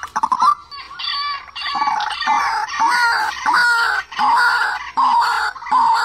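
White-breasted waterhen calling: short harsh notes at first, then from about a second in a dense run of loud, overlapping croaking calls.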